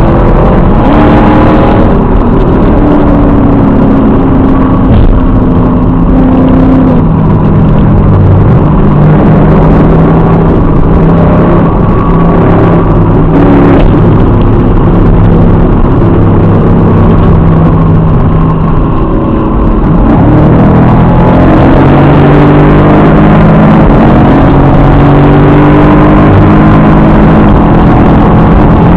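Chevrolet Camaro SS V8 engine under hard acceleration, heard from inside the cabin. Its pitch climbs and drops back at each gear change, holds steady for a stretch, dips briefly about two-thirds of the way through, then climbs through the gears again.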